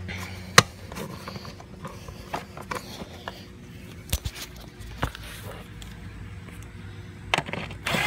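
Scattered clicks and knocks of hands and tools handling a lawn mower's metal deck and parts, with one sharp click about half a second in.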